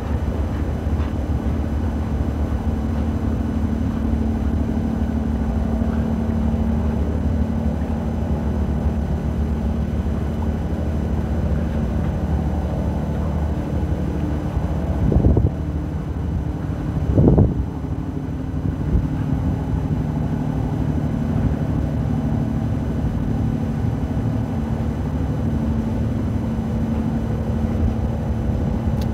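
A boat's engine running steadily, heard from on board as a low hum with a few held tones. Two brief louder surges come about two seconds apart halfway through.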